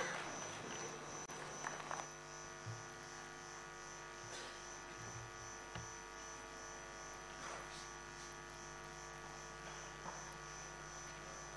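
Faint steady electrical hum with several steady tones, and a few faint soft knocks now and then.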